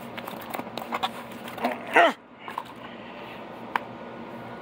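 Rustling and light clicks as a vinyl-covered magnetic tool mat is pulled out of its cardboard box and laid down. About two seconds in there is one short vocal sound that falls in pitch, and a single sharp click comes near the end.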